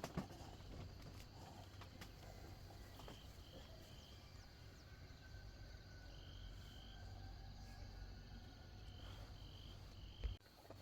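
Faint outdoor ambience: a steady high insect drone with short chirps in groups of two or three. A knock sounds just after the start and a dull thump near the end.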